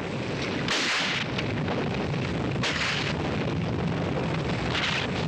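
Avalanche in a film soundtrack: a steady low rumble of snow pouring down the slope, with hissing surges of churning snow about a second in, near three seconds and again near the end.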